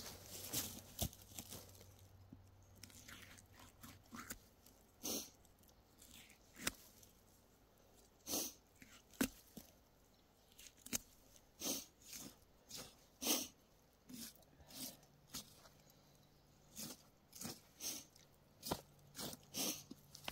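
Black bear being skinned by hand: the hide is pulled and worked away from the carcass, a string of short, irregular crackling and tearing sounds, a few to each second.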